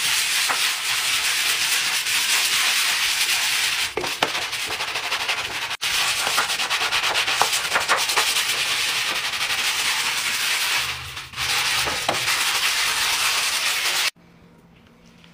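Stiff-bristled scrub brush scrubbing a wet, soapy hard floor: a continuous scratchy back-and-forth bristle rasp with a couple of brief breaks. It stops suddenly near the end.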